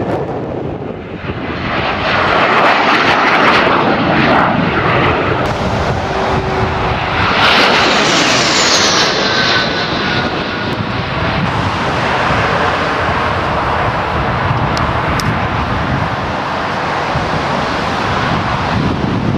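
Twin-engined jet aircraft flying past: a loud roar that builds about two seconds in, with a high whine falling in pitch near the middle as it goes by, and the roar carrying on after.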